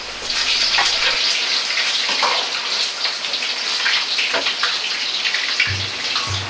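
Hot deep-frying oil in a wok sizzling and crackling hard as carrot and Japanese leek are dropped in with the fried king oyster mushroom pieces to oil-blanch them. A few low thumps come near the end.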